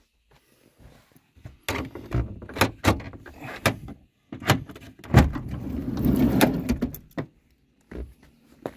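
Citroën Berlingo van's sliding side door worked from inside: a series of handle and latch clicks and knocks, a loud clunk as the door comes free about five seconds in, then about two seconds of rumbling as it runs back along its track.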